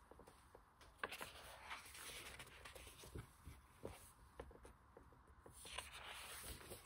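Faint handling of a large hardcover book: soft taps and rustles of thick paper, with a longer paper swish near the end as a page is turned.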